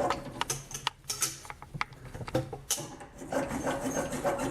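Irregular small clicks and knocks of metal handling on a Redding reloading press as a dummy case is fitted and the die adjusted.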